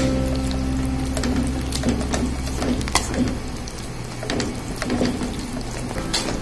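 A spoon stirring thick okra tamarind gravy in a steel kadai, with irregular clicks and scrapes against the pan as the coconut paste is mixed in. A steady low hum fades out over the first few seconds.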